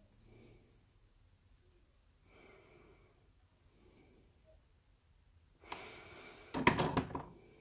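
Quiet workbench handling while soldering, with faint breathing three times. About two-thirds of the way in comes a louder rustle with several sharp clicks, lasting a second or two.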